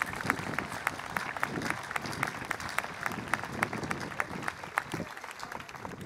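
Crowd applauding, a dense patter of many hands clapping that thins out and quietens near the end.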